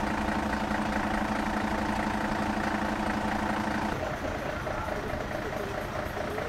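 Truck engine idling steadily. About four seconds in, the sound changes abruptly to another engine running with a quick, regular pulsing tone over it.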